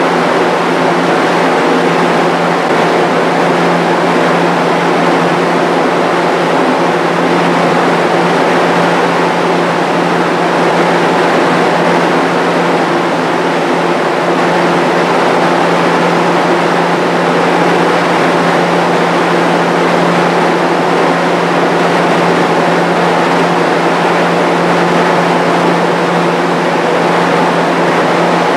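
Rebuilt Jenny exhaust fan running steadily: a loud, even rush of air from the blades over a steady low hum from its electric motor.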